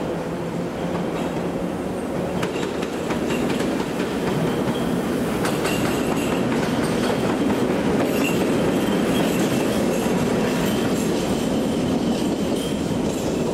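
PKP Cargo ET22 six-axle electric locomotive running past, with a steady rumble, wheels clicking over rail joints and points, and short thin wheel squeals. It grows a little louder as it comes close.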